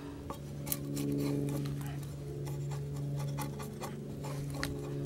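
Draw knife scraping bark off a log post: a run of short, irregular rasping strokes and clicks of the blade on the wood, over a steady low hum.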